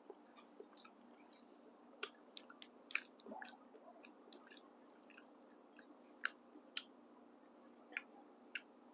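A person chewing a boiled quail egg: faint, irregular mouth clicks and smacks.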